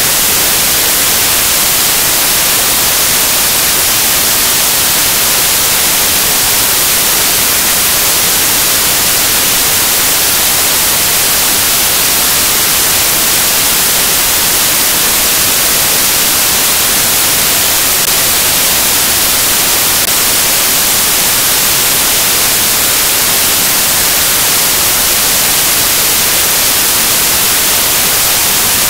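Loud, steady static hiss with nothing else in it, brighter in the highs than the lows. It is noise from a dead or corrupted recording signal.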